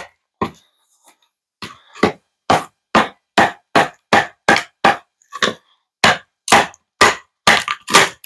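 Batoning: a wooden baton stick striking the spine of a Worktuffgear Carnivore fixed-blade knife to drive it down through a hard, seasoned almond-wood log. More than a dozen sharp knocks come about two a second, with a gap of about a second after the second knock.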